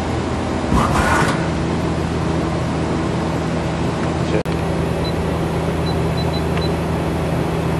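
Okuma LB3000 EXII CNC lathe running with a steady hum. About a second in there is a brief noisy burst, and a little past the middle a single sharp click.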